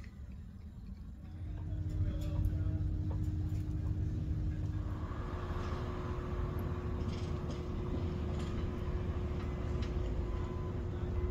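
Low engine rumble with a steady hum that comes in about a second in and grows louder.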